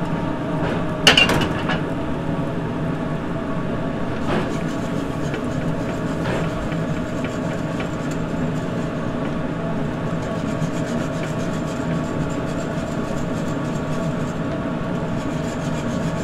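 Wire whisk scraping and ticking against a stainless steel sauté pan as pan gravy is whisked to work out the lumps, over a steady mechanical hum. There is a sharp metallic clink about a second in.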